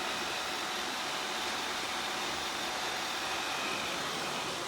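Several robot vacuum cleaners running together: a steady whir of suction fans and brushes, with a few faint high-pitched whines on top.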